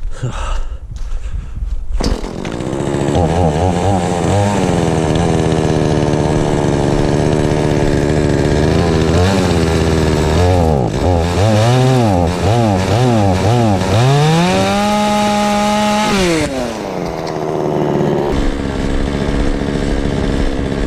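Chainsaw engine starts about two seconds in and runs, revved up and down repeatedly with the throttle, held at high revs for a couple of seconds, then drops back to idle.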